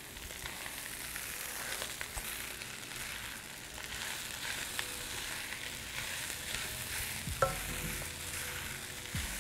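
Fried rice sizzling in a wok while a spatula stirs and turns it over, with scattered light clicks and scrapes of the spatula against the pan.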